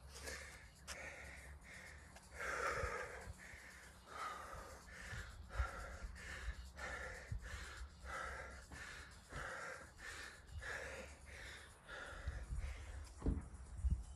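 A man breathing hard through the mouth in steady, evenly spaced breaths, winded from sustained bodyweight exercise (burpees and full-range squats). Near the end, a few low thuds of footsteps on concrete.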